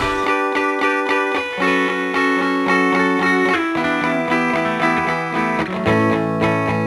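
Background music: held chords that change every second or two over a steady beat.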